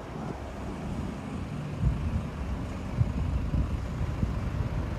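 Street traffic: a steady low rumble of vehicles on a small-town main street, with a couple of short low thumps about two and three seconds in.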